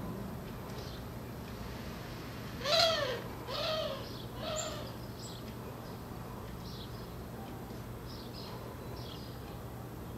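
An animal gives three short hooting calls, each rising and then falling in pitch, spaced just under a second apart. The calls begin a little under three seconds in, and the first is the loudest.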